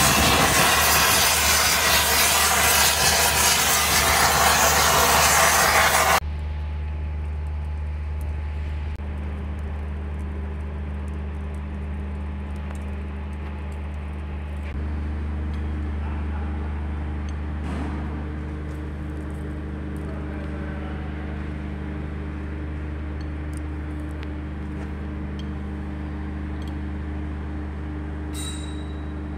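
Thermal lance burning: a loud, steady hiss of oxygen through the burning rod that cuts off suddenly about six seconds in. After that, a steady low machine hum with a few faint clicks, its tone filling out twice.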